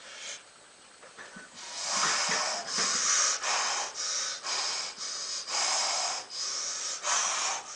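A man breathing hard and fast under heavy exertion, starting about a second and a half in: about nine forceful, hissing breaths in quick succession while he strains through a set of dumbbell chest flies.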